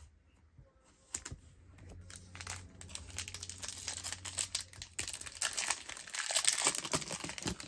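Foil wrapper of a 2022 Bowman 1st Edition baseball card pack being torn open and crinkled by hand. It starts about a second in and grows louder toward the end.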